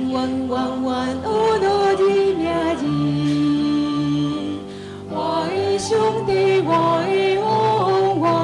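A woman singing a Mandarin praise and worship song into a microphone over sustained musical accompaniment.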